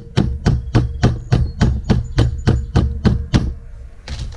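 Light, rapid taps of a yellow soft-faced mallet on an 11 mm socket, driving a valve stem seal down onto the valve guide of an LS cylinder head, about four taps a second and stopping about three and a half seconds in. A single louder knock follows near the end.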